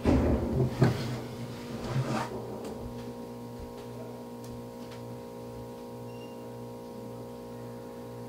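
A few bumps and rustles as a person gets up and moves away, then a steady electrical hum for the rest of the time.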